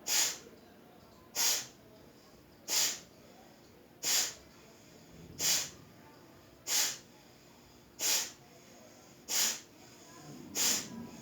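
Kapalbhati breathing through the right nostril alone: short, forceful, hissing exhalations through the nose, evenly paced at about one every 1.3 seconds, nine in all, with silent inhalations between them.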